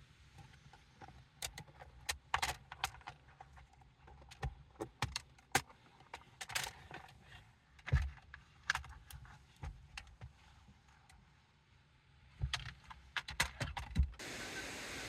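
Irregular clinks, taps and knocks of small hard objects being handled and set down, over a faint low hum. A little past fourteen seconds this cuts off abruptly and a steady rushing noise takes over.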